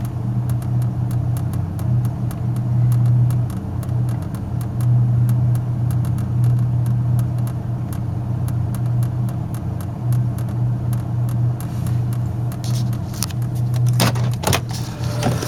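1991 Buick LeSabre's 3.8-litre V6 idling on its own after a cold start, no throttle applied, its hum swelling and sagging every few seconds. A few sharper knocks come near the end.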